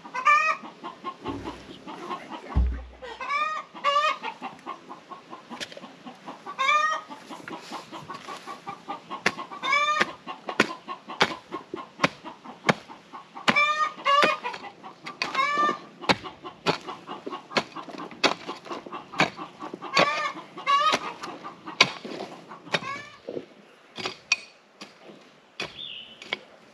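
Chickens clucking, a call every second or two, over the sharp scrapes and strikes of a shovel digging into dirt.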